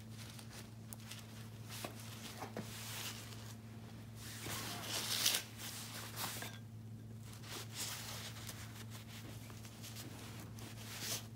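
Thick three-strand rope rustling and scraping as it is spliced by hand, its strands pried apart with a metal spike and pulled through, with small clicks and a louder burst of rustling about five seconds in. A steady low hum runs underneath.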